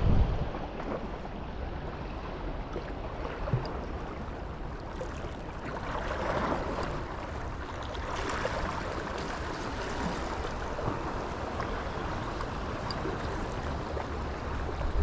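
Steady wash of water at the shoreline with low wind rumble on the microphone, swelling twice as waves wash in.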